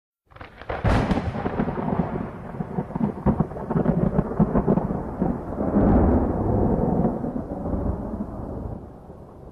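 A thunderclap: a sudden sharp crack about a second in, then a long rolling, crackling rumble that fades near the end.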